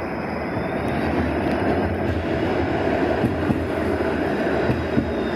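Bombardier Flexity Outlook low-floor streetcar passing close by: a steady rumble of steel wheels on rails over a low hum, growing a little louder about a second in, with a few sharp clicks in the second half.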